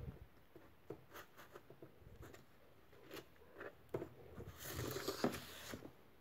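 Hands handling a cardboard-and-tape model submachine gun: scattered light clicks and taps of cardboard parts, then a longer scraping rustle of cardboard about four and a half seconds in.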